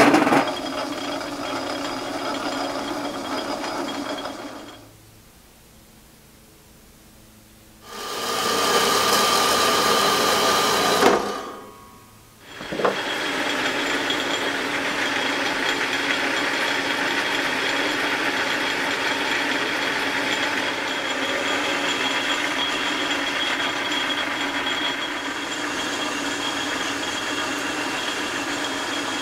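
Metal lathe running and cutting a metal workpiece held in a three-jaw chuck, with chips coming off the tool. The sound falls away for a few seconds about five seconds in and again briefly near twelve seconds. After that it runs steadily, with a high whine over the machining noise.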